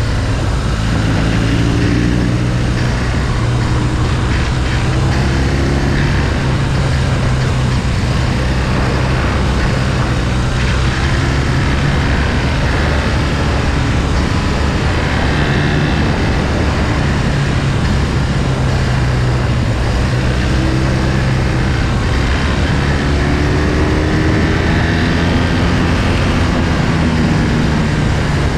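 Motorcycle engine running at speed, heard from on board, its pitch rising and falling with the throttle through the bends, around the start and again late on. Constant wind and road noise runs under it.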